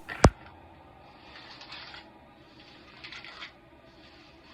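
Two sharp clicks right at the start, then soft, intermittent rustling of hair being handled and sectioned.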